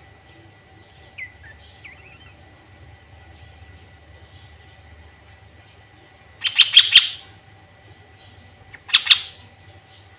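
Sooty-headed bulbul (kutilang) calling: a few faint chirps at first, then two loud bursts of rapid call notes, about six and nine seconds in.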